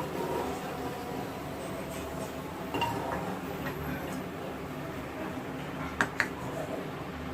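Metal spoon clinking against a kadai while raisins fry in ghee: a sharp clink about three seconds in and two quick ones about six seconds in, over a steady faint hiss.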